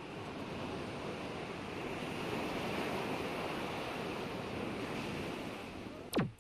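Steady wash of open-air water and wind noise, like small waves lapping. Near the end a quick falling sweep cuts in briefly and is the loudest moment.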